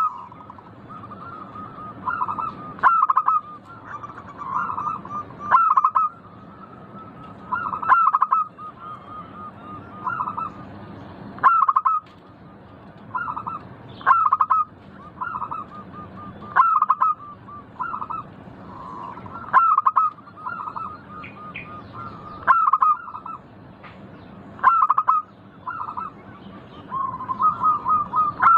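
Zebra dove (perkutut) singing its cooing song: a phrase of a loud opening coo followed by a quick rolling run of notes, repeated about every two and a half to three seconds.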